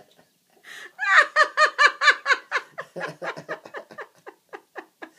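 Hard, helpless laughter: a sharp breath, then a long run of rapid high-pitched 'ha-ha' bursts, about five a second, loudest at first and tailing off.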